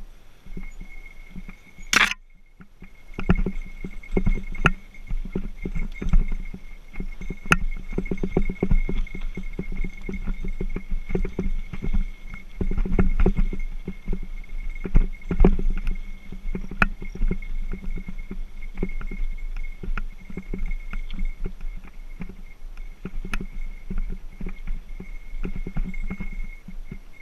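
Mountain bike rolling over a rough dirt single-track: steady irregular rattling and knocking as the bike and camera jolt over bumps, over a low rumble, with a bear bell jingling along. A single sharp knock about two seconds in.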